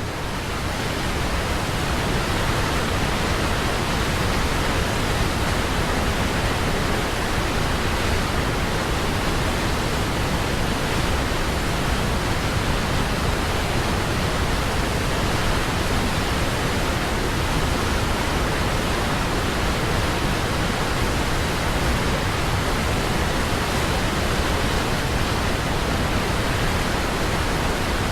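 Waterfall on the Norðurá river, a steady, loud rush of falling water with no breaks or changes.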